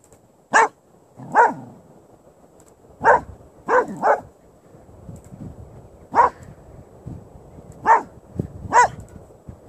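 An 8-month-old Labradoodle barking at a large log it is wary of: eight short barks at irregular gaps of half a second to two seconds.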